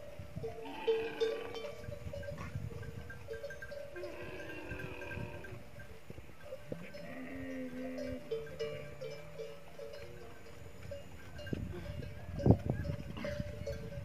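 Dromedary camels in a grazing herd calling several times, with a bell on a camel's neck clanking and ringing steadily underneath. A single sharp thump comes near the end.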